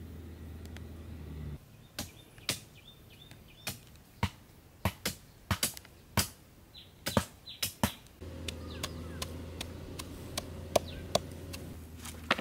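A blade chopping: about fifteen sharp, irregular chops over six seconds, with a few short bird chirps among the first ones. A steady low hum before the chopping and through the last four seconds.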